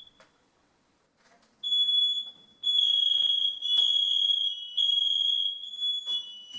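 New First Alert hardwired smoke alarms sounding their test alarm: a loud, high-pitched beeping that starts under two seconds in and repeats in long beeps. A second, slightly lower tone joins about a second later, as the interconnected alarms go off together.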